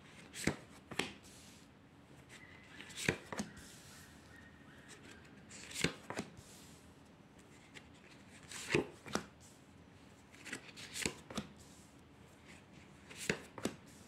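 Tarot cards being dealt one by one onto a cloth-covered table: six pairs of sharp card snaps, spaced a few seconds apart.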